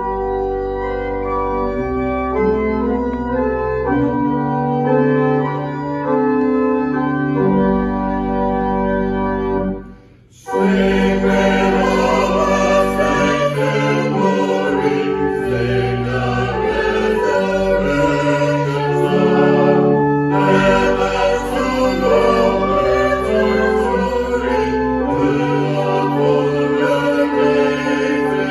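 Church organ playing held chords. It breaks off briefly about ten seconds in and comes back fuller, with voices singing along.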